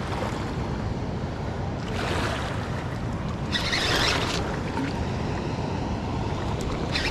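A hooked king salmon splashing at the surface of shallow river water in three short bursts, the longest about four seconds in, over a steady rumble of wind on the microphone.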